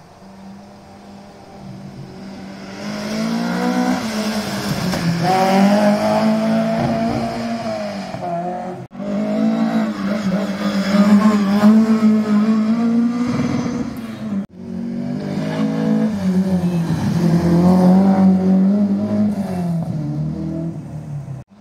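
Rally car engines revving hard, the pitch rising and falling with throttle and gear changes. The engines come in three stretches split by abrupt cuts about 9 and 14.5 seconds in, and the first builds up from faint as a car approaches.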